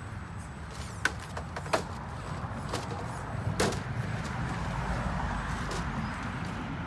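Scale RC rock crawler knocking against rocks as it climbs the course: three sharp clacks in the first four seconds, over a steady low background rumble.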